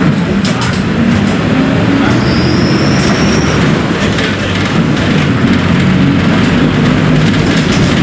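Diesel engine of a VW 17.230 OD Euro V bus running over a dense rumble, its pitch shifting up and down, with a faint high whine coming in about two seconds in.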